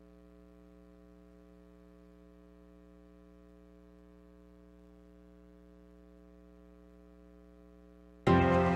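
Faint, steady electrical hum made of several fixed tones. About eight seconds in, theme music starts abruptly and loudly.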